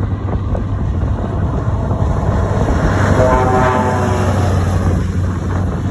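Scania lorry driving past with its diesel engine running, giving one air-horn blast of about a second, a chord of several pitched tones, about three seconds in.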